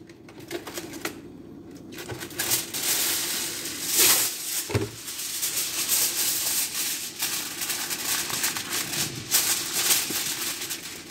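Aluminium foil crinkling and rustling as a sheet is handled and pressed down over a baking pan, starting about two seconds in, with a dull knock near the middle.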